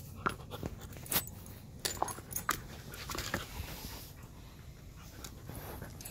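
Alaskan husky mouthing and chewing a ball on tile: a scatter of short clicks and knocks, about six in the first three and a half seconds, then fewer.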